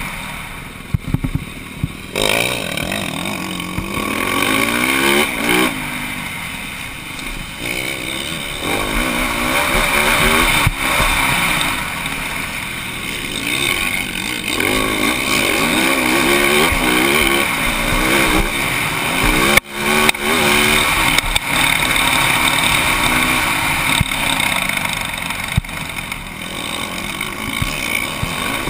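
Motocross bike engine heard close up from the rider's helmet camera, revving up and easing off again and again while racing on a dirt track. The engine noise rides over a steady rushing hiss, and it drops out suddenly for a moment about two-thirds of the way through.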